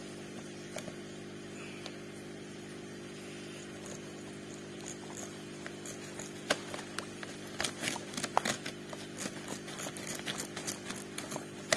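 Plastic koi-food bag crinkling and crackling as it is handled and opened. The crackles are sparse at first and come thick and sharp in the second half, over a steady low hum.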